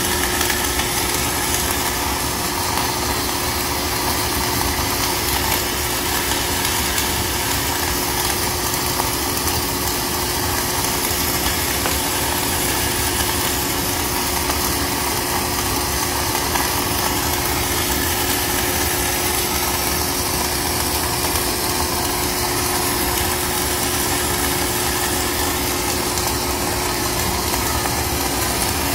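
Electrogas welding arc burning on thick steel plate: a steady crackling hiss with a constant hum underneath.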